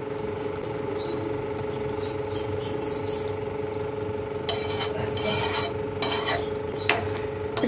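A spoon stirring and scraping in a pan of simmering beef curry, in several short strokes, over a steady hum.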